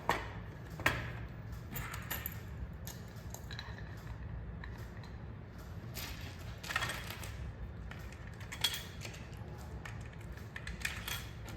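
Irregular clicks and clinks of small curtain-track parts being handled and fitted onto the rail, with a few sharper knocks scattered through.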